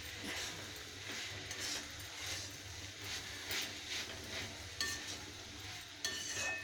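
Metal spatula scraping and stirring drumstick leaves and pumpkin pieces in a metal kadai, in rhythmic strokes about every two-thirds of a second. A couple of sharper metallic clinks of the spatula against the pan come near the end.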